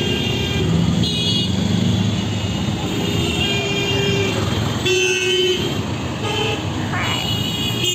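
Busy city road traffic: cars, taxis and motorbikes running past, with horns honking again and again in short blasts of several different pitches.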